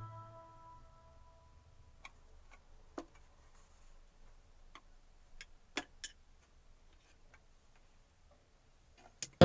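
Scattered light clicks and taps, about eight over several seconds, in an otherwise quiet stretch, just after background music fades out.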